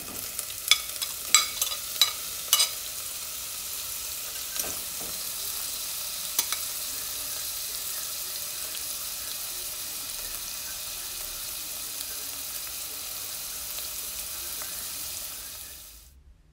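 Sliced red onion sizzling steadily in hot oil in a pot, with several sharp clinks of a metal spoon against the plate and pot in the first few seconds as the onion goes in. The frying hiss fades out near the end.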